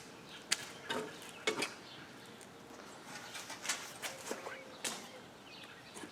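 Faint, scattered bird chirps with a few short, light clicks in between.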